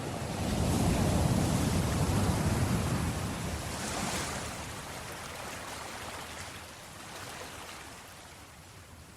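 Sea waves breaking on a beach: a wave rolls in loudly over the first few seconds, then the surf washes up with a hiss and fades.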